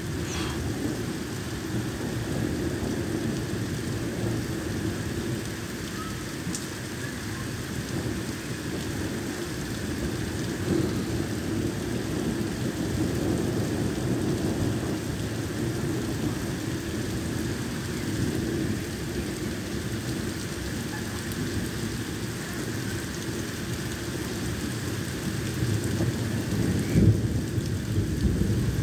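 Thunderstorm downpour: heavy rain pouring steadily onto a wet street, with a low rumble of thunder swelling louder near the end.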